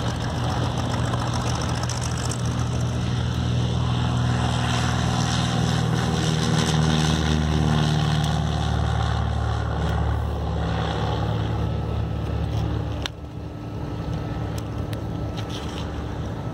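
Cessna 172 Skyhawk's engine and propeller at takeoff power, loud and steady. Its pitch falls as the plane rolls past about halfway through. Near the end the level drops suddenly and the engine goes on fainter.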